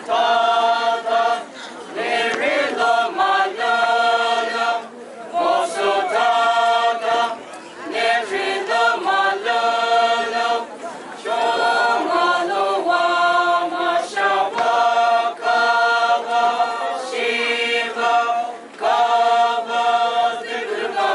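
A mixed group of men and women singing a traditional Naga folk song unaccompanied, in long held notes phrased in lines of two to three seconds with short breaths between them.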